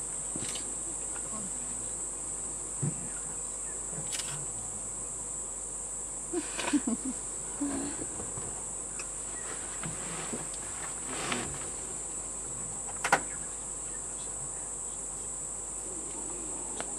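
Steady high-pitched insect chorus, one unbroken drone, with a few brief clicks and knocks scattered over it.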